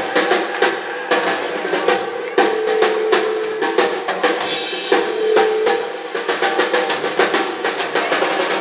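Rock drum solo on a full drum kit: rapid snare and bass-drum hits, amplified through a club PA. A held mid-pitched tone sounds twice over the drumming, around two and a half and five seconds in.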